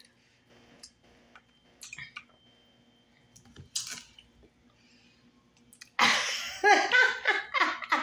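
Quiet chewing and small clicks of cooked horseshoe crab legs being picked apart. About six seconds in, a woman breaks into loud laughter.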